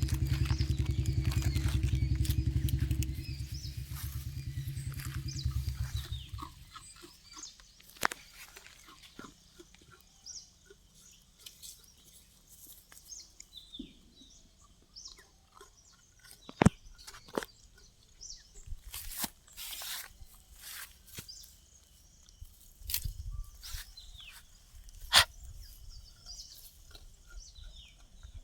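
An engine running with a low, even pulse, loud at first and fading out about six seconds in. Then a quiet outdoor background with scattered bird chirps and a few sharp clicks or taps.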